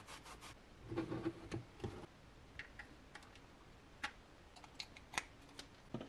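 Faint soft rubbing of a cloth wiping the plastic case of a small filament connector, followed by a few scattered faint clicks of handling.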